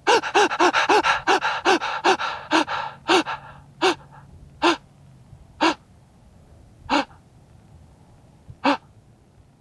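A man's short, strained gasps, quick and close together at first, then slowing to about one a second and stopping near the end: the last gasping breaths of a badly wounded, dying man.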